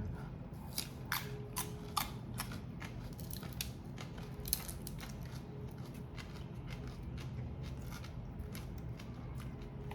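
Prawn and crab shells being snipped and cracked apart: a run of sharp clicks and snips, most frequent in the first half.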